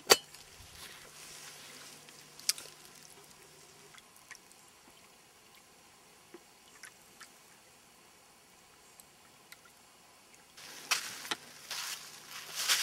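A stainless camp pot lid clicks down onto the pot at the start, then quiet with a few faint scattered ticks and drips. From about ten seconds in, closer rustling and clattering of handling.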